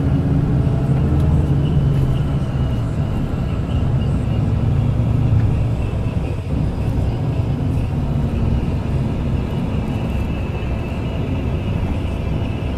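Steady engine and road noise of a moving road vehicle, heard from inside the vehicle: a continuous low rumble that eases slightly about halfway through.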